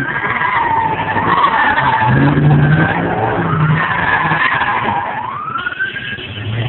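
Car tyres screeching in long, wavering squeals that rise and fall in pitch, over a car engine revving hard, as cars spin burnouts and donuts in thick tyre smoke.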